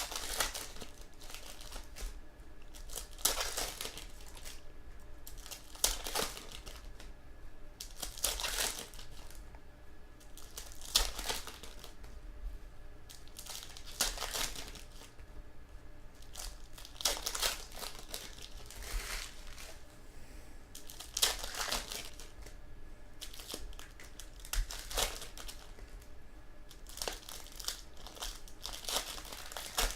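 Crinkling of trading-card packaging, foil pack wrappers or plastic sleeves, handled in short rustles about every two to three seconds.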